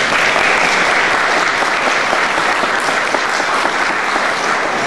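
An audience applauding: a steady round of many hands clapping.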